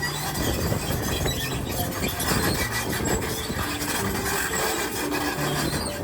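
Heavy machinery running with a dense metallic din and squealing, with short steady tones at changing pitches mixed in.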